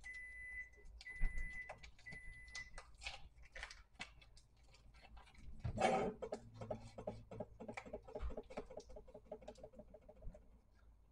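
Foil wrapper being peeled and crinkled off a block of cream cheese, with many small crackles and clicks. A denser run comes from about six to ten seconds in. Early on, a high steady tone sounds three times.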